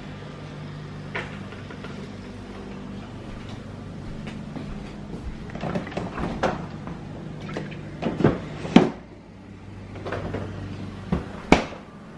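Kitchen handling noises: scattered light clicks and knocks, with three louder knocks in the second half, over a steady low hum.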